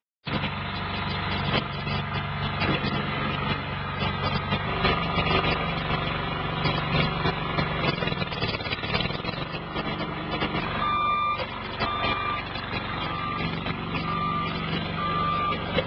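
Engine of a homemade mini skid steer loader running steadily. In the last few seconds a row of about five short, evenly spaced beeps sounds over it.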